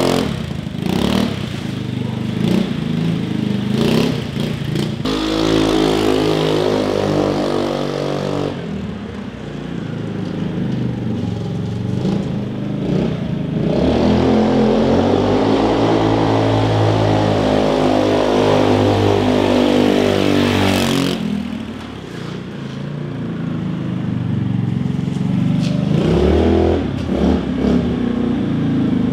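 Sanyang (SYM) China scooter engine running through a newly fitted fake Akrapovic exhaust as the scooter is ridden off and back. The engine note rises and falls with the throttle, is loudest around the middle, and drops away sharply about two-thirds of the way through before coming back up near the end.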